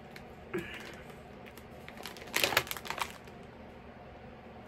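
A clear plastic bag of wax melts crinkling as it is handled and lifted, with a quick cluster of crackles a little past halfway.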